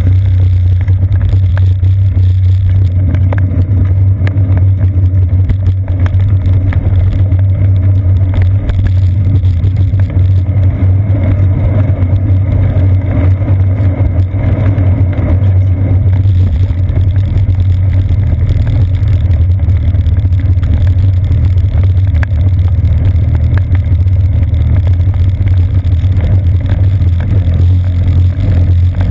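Steady, loud low rumble of a moving bicycle, picked up by a seat-post-mounted GoPro Hero 2 in its sealed housing as ride vibration and wind.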